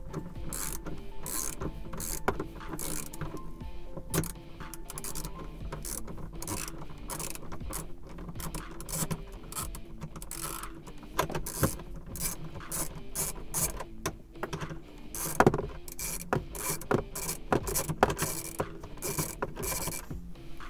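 Wrench working a stiff 10 mm self-locking hex nut on the ventilation box of a Smart fortwo 450: many sharp, irregular metal clicks and scrapes as the nut is turned.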